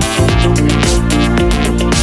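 Electronic dance music with a fast drum beat over sustained bass notes.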